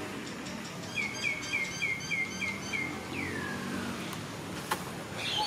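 A bird singing: a quick run of about seven short, evenly repeated chirps, then one longer falling note. A single sharp click comes near the end.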